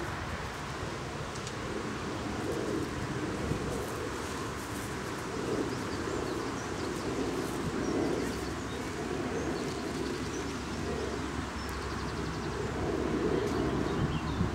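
A pigeon cooing over and over in soft, repeated phrases, with small birds chirping faintly at times and a steady low background hum.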